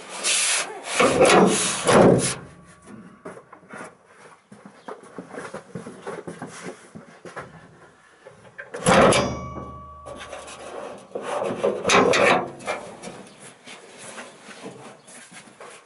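Bonnet of a 1976 Datsun 280Z being lowered over the engine with loud rubbing and scraping, pressed fully down with a single sharp thud about nine seconds in, then lifted open again with another burst of rubbing.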